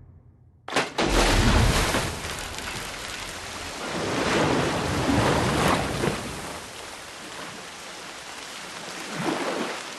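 Heavy rain that starts suddenly just under a second in, with a deep rumble of thunder, then a steady downpour that swells twice.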